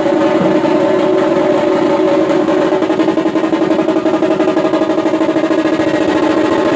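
A drum band playing fast, continuous rolls on large stick-beaten drums: a loud, dense, rattling rhythm with a steady ringing drone underneath.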